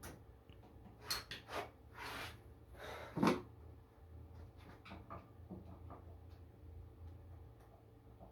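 Hand work on the ATV, with no engine running: a few short scrapes and knocks in the first few seconds, the loudest about three seconds in, then scattered light clicks, as something is being loosened.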